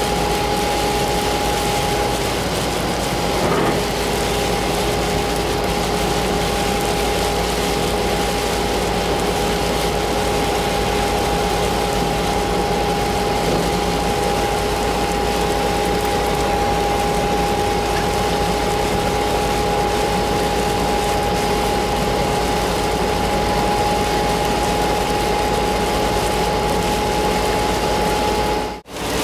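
Steady road and tyre noise inside a car driving on a rain-soaked highway, with a constant high whine running through it. A small click comes a few seconds in, and the sound drops out for a moment near the end.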